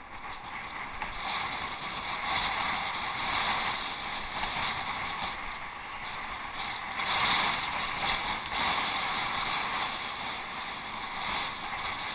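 Bicycle being ridden off-road: a steady rush of tyre noise over rough ground mixed with the bike's mechanical rattling, swelling and easing with the terrain and loudest a little past the middle.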